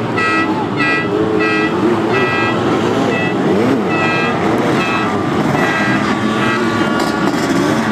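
Sidecar motocross outfits' engines revving, pitch rising and falling as they race past. A high tone pulses about twice a second over them for the first few seconds.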